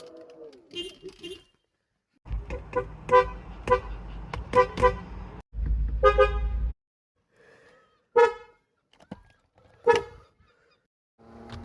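Car horn honking: a quick run of about six short toots, then a longer blast, then two more single toots spaced apart. A low rumble of engine or road noise runs under the first toots and the long blast.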